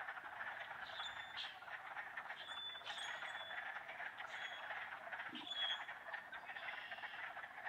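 Wetland chorus of spring peepers: a dense, steady din of frog calls, with single high clear peeps standing out several times over it.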